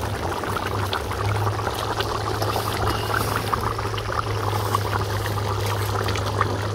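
Tamarind fish gravy (kuzhambu) bubbling at a boil in the pot, with many small pops over a steady low hum.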